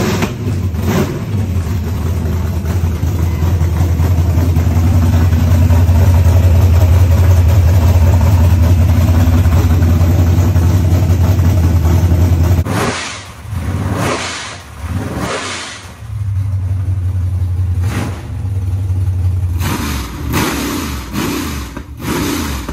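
Small-block Chevy V8 with short open headers, no collectors or mufflers, running at a loud steady idle. A little past halfway it is revved in a few short blips, and again near the end.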